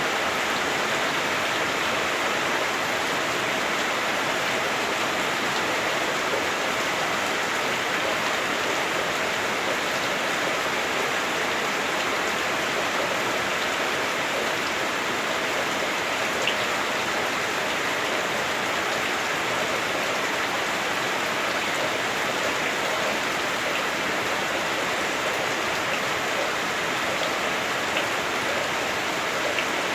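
Heavy rain drumming steadily on a house roof, heard from indoors, with a few louder single drops ticking now and then.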